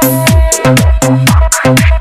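Background electronic dance music with a steady, heavy beat: deep kick drums that drop in pitch on each hit, over sharp hi-hat strikes and a held synth note.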